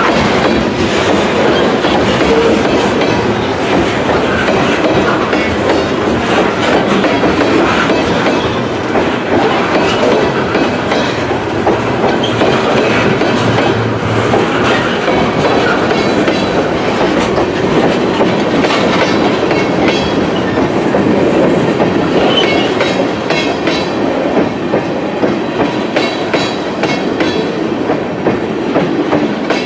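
Freight train of covered hoppers and tank cars rolling past close by: a steady rumble of steel wheels on rail, with wheels clicking over rail joints. The last car goes by near the end.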